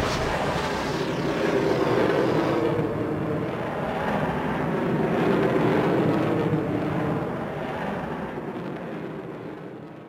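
Bullet-time sound effect: a long, low rumbling drone with no separate strokes. It swells around the middle and fades out steadily over the last few seconds.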